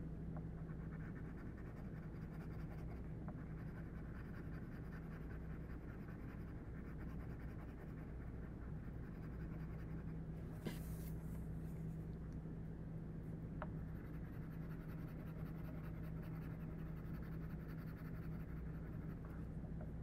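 Graphite pencil shading lightly on a paper worksheet: a soft, steady scratching of quick back-and-forth strokes, over a low steady hum. One sharp click about halfway through.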